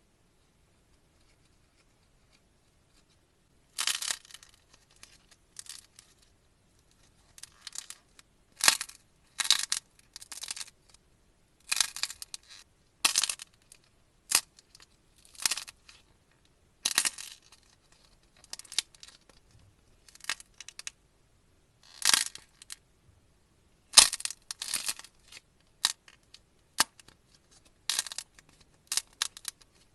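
Dried clay being cracked and crushed in a series of short, crisp crackles, about one a second, starting about four seconds in.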